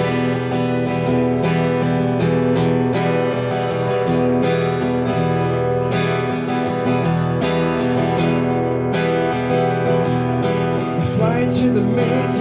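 Steel-string acoustic guitar strummed steadily in a song's instrumental intro, full chords ringing on.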